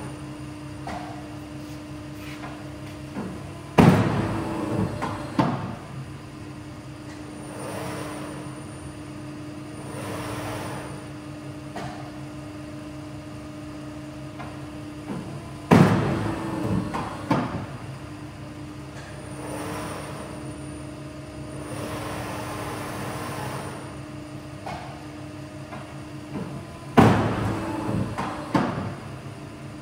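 Polar 155 ED guillotine paper cutter running with a steady hum and going through three cutting cycles about twelve seconds apart. Each cycle starts with a sudden loud bang, followed by about two seconds of clattering.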